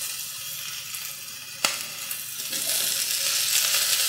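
Diced onion, celery, carrot and garlic sizzling as they sauté in oil in an enamelled Dutch oven. A single sharp click about a second and a half in. The sizzle grows louder about halfway through as more oil is added.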